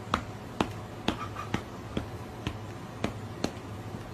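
Sharp, evenly spaced clicks, about two a second, over a steady low hum.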